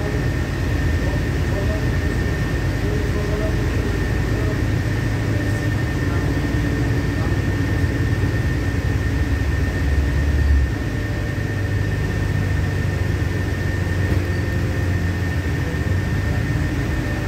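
LiAZ-5292 city bus under way, heard from inside the passenger cabin: a steady engine and road drone with a thin high whine running through it. The low engine note eases off a little about ten and a half seconds in.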